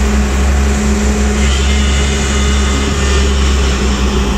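Hyundai 215 crawler excavator's diesel engine running steadily, a loud low drone.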